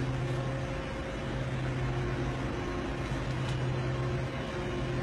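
Steady low hum with an even hiss, with no sudden events: the background machinery room tone of a doughnut shop.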